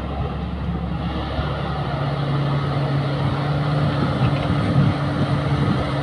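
Caterpillar hydraulic excavator's diesel engine running under load as it lifts and swings a full bucket of earth, a steady engine drone whose note strengthens about a second and a half in.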